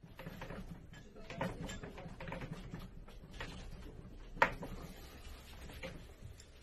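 Household objects rattling and knocking as a room shakes in an earthquake, over a low rumble. Scattered knocks, with one sharp knock about four and a half seconds in the loudest.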